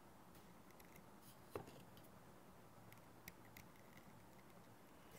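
Near silence: room tone, with a few faint short clicks, the most distinct about one and a half seconds in.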